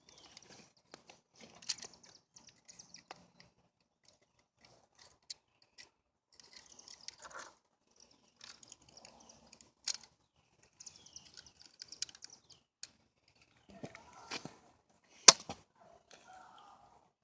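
Irregular handling noise: scattered clicks, taps and rustles, with a sharp knock about fifteen seconds in as the loudest sound.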